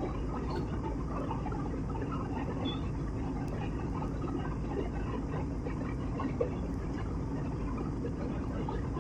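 Steady in-flight cabin noise of an airliner: the even rush of engines and airflow, heard from a window seat.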